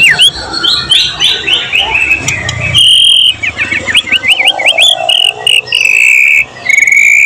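White-rumped shama (murai batu) singing a varied song: a fast run of short falling notes, then clear held whistles broken by a quick run of rising-and-falling notes.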